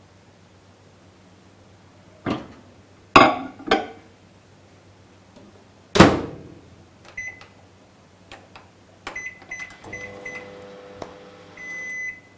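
LG microwave oven in use: a few knocks as the bowl goes in, a loud clunk of the door shutting about six seconds in, then keypad beeps. A short steady hum of the oven running follows, and long end-of-cycle beeps sound near the end.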